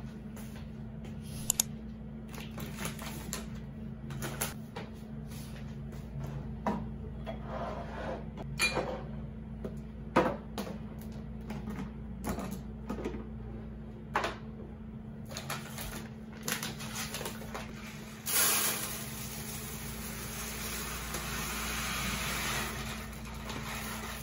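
Plastic containers and jars being handled and set down on a shelf, giving scattered light clicks and knocks. About eighteen seconds in, dry brown rice starts pouring from its bag into a clear plastic storage canister, a steady grainy rush that lasts several seconds. A steady low hum runs underneath.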